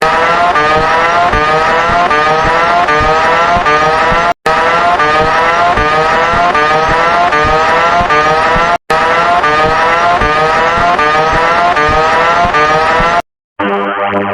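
Mock emergency alert alarm: a harsh, distorted electronic tone made of rapidly repeated rising sweeps, sounded in three blasts of about four seconds each with brief breaks between them, then cut off near the end as synthesizer music comes in.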